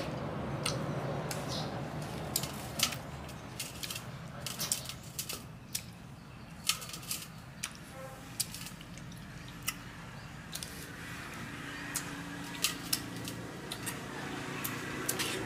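Scattered light clicks and taps, a few a second at irregular intervals, over a low steady hum.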